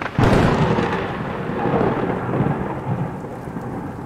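Thunderclap sound effect: a sudden crack just after the start, then a long rumble that slowly fades.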